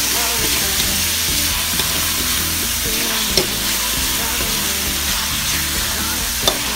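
Sliced pork belly sizzling steadily in a hot wok while a metal spatula stirs it, the spatula clinking against the wok twice: a little over three seconds in and near the end.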